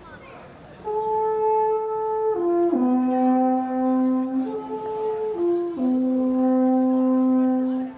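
Alphorn playing a phrase of long held notes, starting about a second in: a note stepping down twice to a long low note, then the same descent again, ending on a second long low note.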